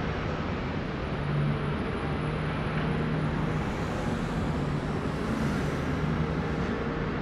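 Steady traffic noise with a low, even engine hum.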